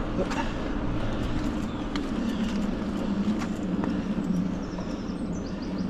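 Mountain bike on Maxxis Forekaster and Aspen cross-country tyres rolling along a trail: a steady rush of tyre and wind noise with frequent small clicks and rattles.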